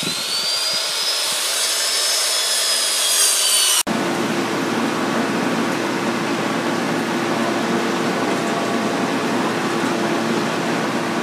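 Steady mechanical noise: a hissing high whine that glides up and then slowly sags, cut off suddenly a few seconds in. It is followed by a steadier hiss with a low, even hum.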